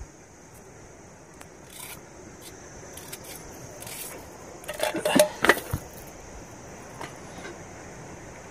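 Small kitchen knife slicing a red onion over a bowl: soft scrapes and light clicks, with a cluster of louder clicks and knocks about five seconds in, over a steady faint hiss.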